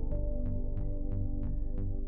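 Background music: held synthesizer-like notes over a low bass, with a steady ticking beat about three times a second.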